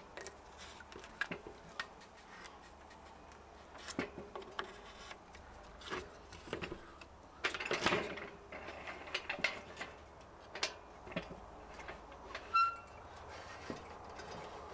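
Handling noise on a folding workbench: scattered clicks and knocks of plastic bench clamps being fitted into the bench top and a plywood plate being set in place, with a longer scrape about eight seconds in and a brief squeak near the end.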